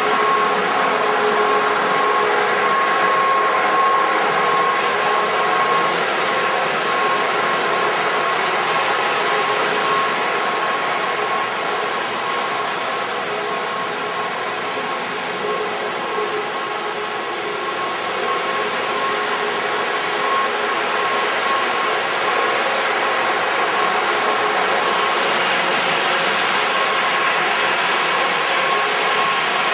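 Lionel O-gauge F3 diesel model train running: a steady mechanical hum of the motors and wheels on the track with a thin high whine, blended with the locomotive's onboard diesel engine sound.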